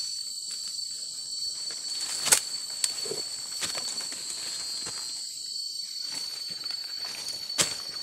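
Forest insects droning steadily in a high-pitched buzz of several tones, over footsteps through dry leaf litter with a few sharp cracks, the loudest about two seconds in.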